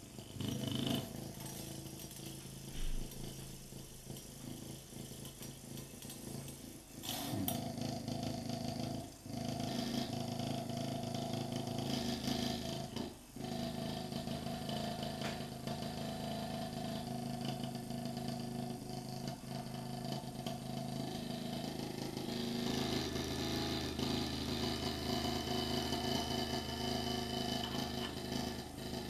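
Strela free-piston thermoacoustic engine running, its spring-returned piston shuttling rapidly in the glass tube with a steady mechanical hum. The hum dips briefly twice in the first half.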